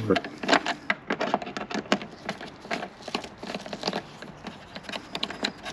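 Hand screwdriver turning a T20 Torx screw out of a motorcycle top case: a run of irregular small clicks and ticks that stops near the end.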